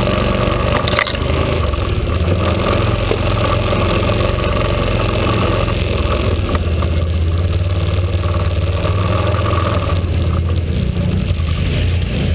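ATV engine running steadily close by as the quad rides over the forest floor, easing off near the end.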